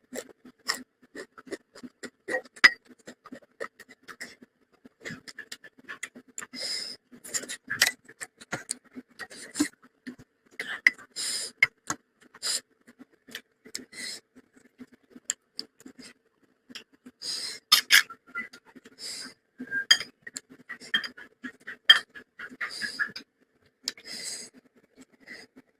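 A person eating rice and curry close to the microphone: wet chewing and lip smacks in short, irregular bursts, with a few clinks of dishes.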